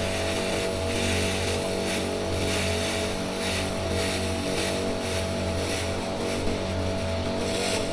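Pulsed fibre laser cleaning head ablating paint and putty off a steel car panel: a steady hiss over a constant low machine hum.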